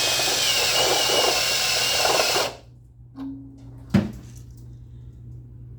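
Electric drill with a step bit cutting through steel plate, running steadily with a thin high whine, then stopping about two and a half seconds in with the hole drilled through. A short low hum and a sharp knock follow about a second later.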